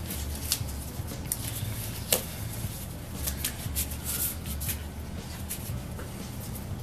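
Thick 9-mil black nitrile work gloves being peeled off the hands: a run of light crackles and snaps, the sharpest about two seconds in, over a steady low hum.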